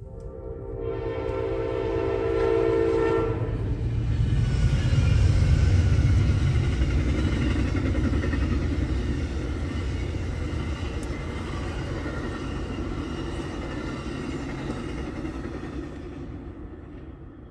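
Amtrak passenger train's horn sounds one long blast that ends about three seconds in. The train then passes the crossing with a loud rumble of wheels and cars, loudest around five seconds in, slowly fading as the last cars go by.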